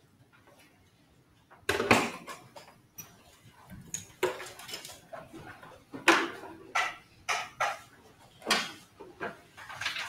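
Knocks and clattering of people moving about a lecture room: a sharp loud bang about two seconds in, then a string of irregular shorter knocks.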